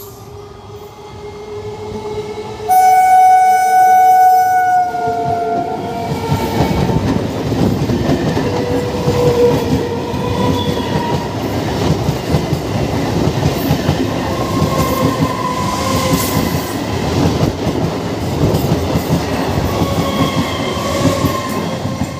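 Indian Railways electric multiple-unit local train sounding one long horn blast about three seconds in, its pitch falling slightly. The horn gives way to the steady rumble and clatter of the coaches' wheels on the track as the train runs past.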